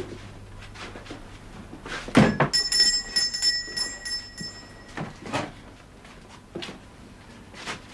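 A heavy thud, like a door, about two seconds in, followed by a small bell ringing with several high tones for a couple of seconds. A few lighter knocks come after.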